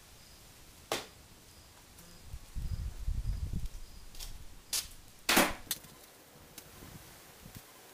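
Skateboard on a concrete floor: a sharp clack of the board about a second in, its wheels rolling for about a second, then more clacks of the board hitting the concrete, the loudest a little past halfway.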